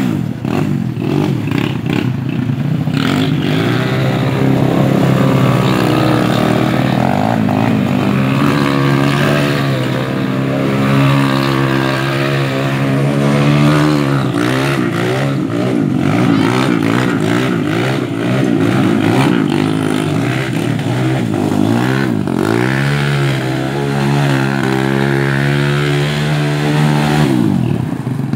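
Small ATV (quad bike) engine revving up and down repeatedly as the quad spins donuts on loose gravel.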